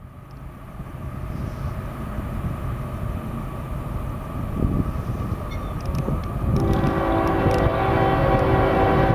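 Approaching diesel freight train: a low rumble that grows steadily louder, with the locomotive's air horn faint at first and then sounding loud and steady from about six and a half seconds in. The horn is blowing for the grade crossing.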